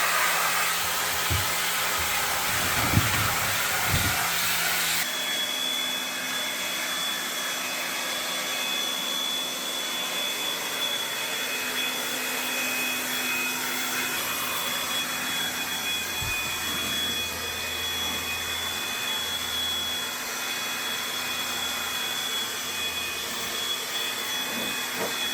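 Electric high-pressure washer running and spraying air-conditioner parts, a steady rushing noise with a thin whine. The sound changes abruptly about five seconds in.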